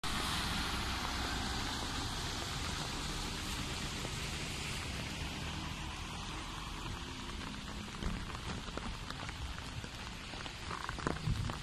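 Steady rain falling on a flooded road, with a van's tyres sloshing through deep standing water over the first few seconds. A few scattered drips and splashes near the end.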